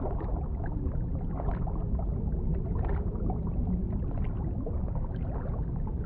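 Muffled underwater water ambience: a steady low rumble of moving water with faint bubbling and crackling, dull and cut off above the middle range.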